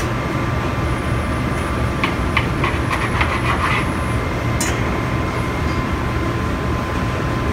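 Steady rumble of commercial kitchen ventilation with a faint steady whine over it. About two seconds in, a short run of crunching clicks as a knife cuts through toasted panini bread on a wooden board, then a single sharp tap.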